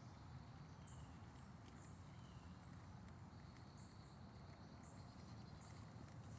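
Near silence: a faint steady low hum with short, high chirps about once a second, and a thin steady high whine that starts about halfway.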